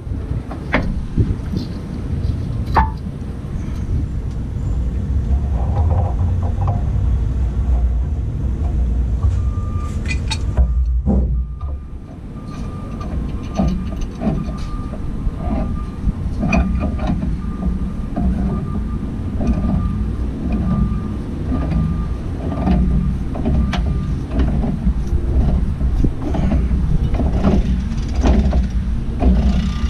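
Steady low rumble, with a run of short metallic clicks and knocks a little under a second apart from about halfway in: a pipe wrench working a threaded fitting on a coolant filter head.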